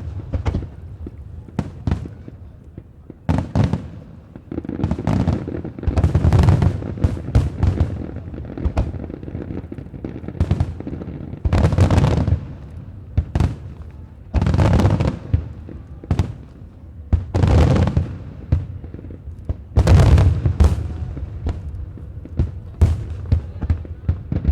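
Aerial fireworks going off in quick succession: deep booms of bursting shells mixed with sharp crackling, coming in clusters every one to three seconds.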